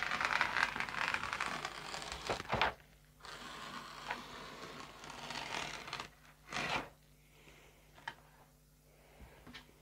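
A knife blade drawn along a wooden straightedge, scoring and cutting through a thin sheet of wood veneer: a long rasping stroke, a second one from about three to six seconds in, and a short sharp scrape just before seven seconds, then quieter handling of the veneer.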